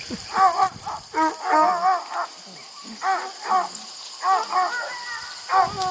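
Redbone coonhound puppies yipping and whining: a string of short, high cries that rise and fall, several in quick runs.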